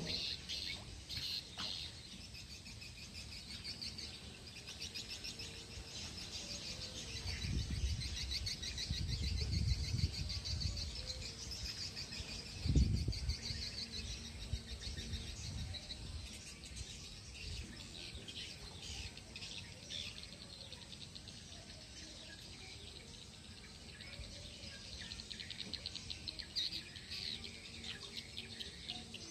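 Birds chirping, a fast high twitter that runs on without pause. A low rumble builds around the middle, and there is a single thump about 13 seconds in.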